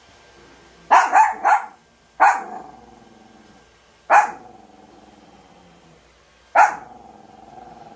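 Small dog barking to invite play: a quick run of three barks about a second in, then single barks about every two seconds, each trailing off in a fading drawn-out note.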